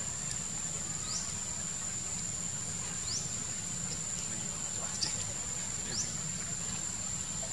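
Steady high-pitched insect drone, like crickets, with short rising chirps about every one to two seconds over a low steady hum.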